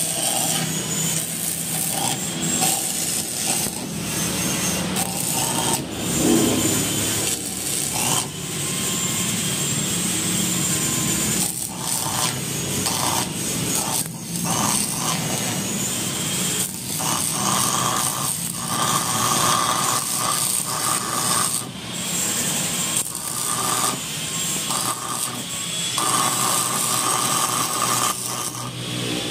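Metalworking tools scraping and grinding on a motorcycle muffler pipe, going in short spells with brief breaks between them.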